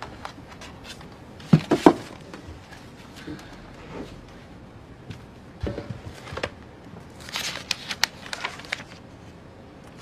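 Two soft knocks as a file is taken from a shelf, then paper rustling as the pages of a thick scrapbook of newspaper clippings are turned, in short bursts from about six seconds in.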